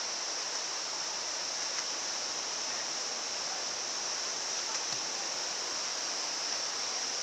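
Waterfall rushing with a steady, even noise.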